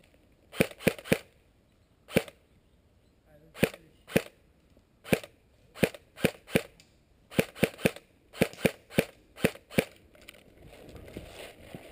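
Airsoft gun firing about eighteen sharp shots, some single and some in quick strings of two or three, which stop about ten seconds in.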